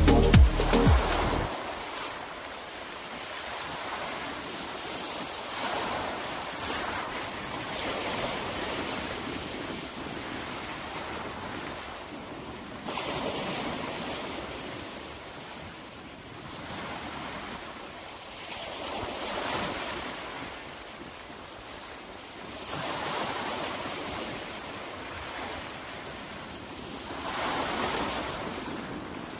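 Ocean surf washing onto a beach, the noise swelling and falling every few seconds as waves break, with some wind on the microphone.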